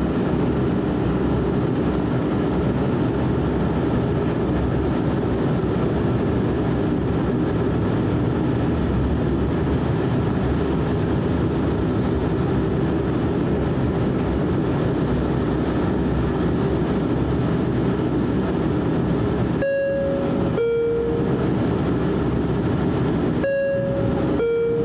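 Steady cabin drone of a DHC8-Q400's Pratt & Whitney PW150A turboprop engines and propellers at taxi power, heard from inside the passenger cabin. Near the end, a two-tone high-low cabin chime sounds twice, signalling a cabin crew announcement.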